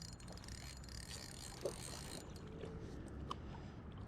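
Fishing reel being cranked faintly while playing a large freshwater drum on the line.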